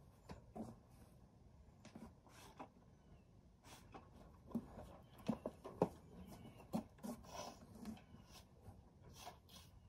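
Faint rubbing from a horse being groomed, with a few scattered small clicks and knocks, the sharpest a little past the middle.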